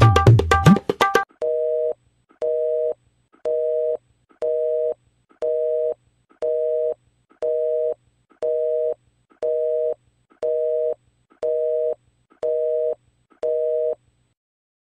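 Phone alarm going off: an electronic beep of two steady notes together, about half a second long, repeating once a second about thirteen times. Tabla music cuts off about a second in, just before the beeping starts.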